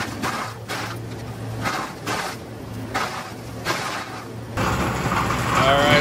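Tractor-driven Wallenstein BX62 brush chipper running with a steady hum from the Kioti tractor's diesel engine, with irregular bursts of noise as spruce branches are fed in and chipped. The sound changes abruptly about 4.5 seconds in, and a man's voice starts near the end.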